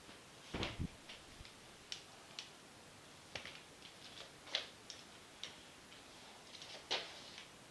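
Aluminium forearm crutches and feet tapping on a laminate floor during slow crutch walking on an injured leg: irregular light clicks about once a second, with a heavier thump about half a second in.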